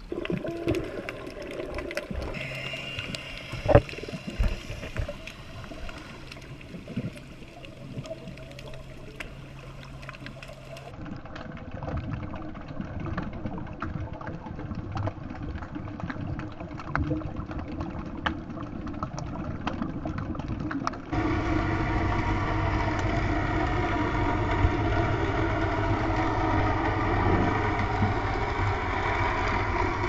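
Raw underwater sound through a GoPro housing: muffled water noise with scattered clicks and knocks. About two-thirds of the way in it turns into a louder, steady engine drone, a motorboat heard through the water.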